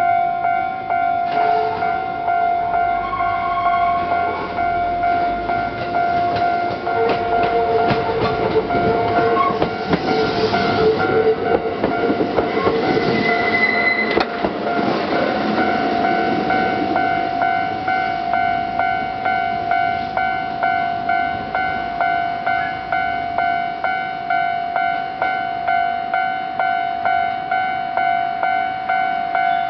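A Kintetsu train runs through the station about a third of the way in, with wheel clicks over rail joints and a brief squeal, rising and then fading. Throughout, a warning bell rings in steady, evenly spaced strokes.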